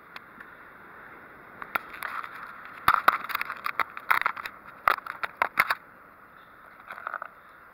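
Sharp clicks and scrapes of a folding multi-tool and a metal hook disgorger being handled while the knife is got out to cut a notch. They come in a quick irregular run from a couple of seconds in, loudest around the middle, with a few fainter clicks near the end.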